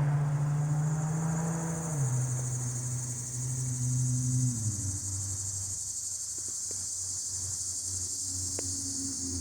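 Chorus of summer cicadas trilling in the trees, a steady high-pitched buzz. Under it, a low engine hum drops in pitch in two steps during the first half.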